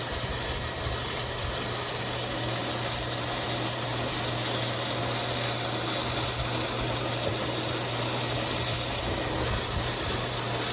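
Shallow-well pump running steadily with a low hum while water rushes out of an open outlet in an even hiss, flushing sediment out of the well.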